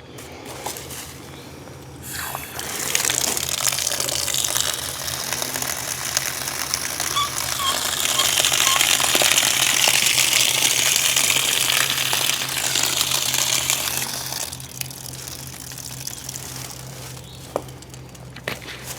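Water running hard, an even gushing hiss that starts about two seconds in and stops a few seconds before the end, over a steady low hum.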